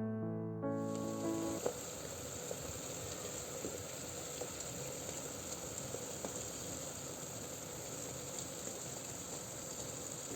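A piano melody that stops about a second and a half in, then a steady hiss with faint scattered crackles, like something sizzling.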